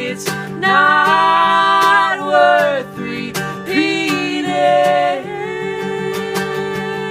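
A man and a woman singing together in two phrases over a strummed guitar; about five seconds in the voices thin out and the guitar strumming carries on.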